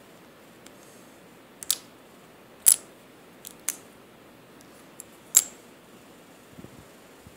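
Lego bricks being pulled apart and handled: a series of sharp, short clicks at irregular intervals, the loudest about two and a half and five seconds in.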